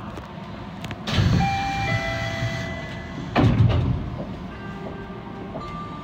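Suspended monorail car standing at a station platform. About a second in comes a loud low burst with a chime of several steady tones, and a second loud burst follows at about three and a half seconds.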